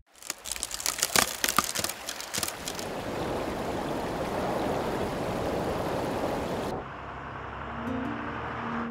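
Cartoon sound effect of a dam wall cracking and bursting: a burst of crackling and breaking, then steady rushing water. The rush cuts off suddenly about two-thirds of the way through, and a softer rumble and music notes follow near the end.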